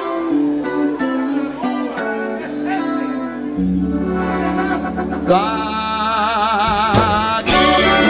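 Live gaúcho band music: a piano accordion carries the melody in quick note steps over electric guitar, then bass and drums come in fully about three and a half seconds in. A long wavering held note rides on top near the end.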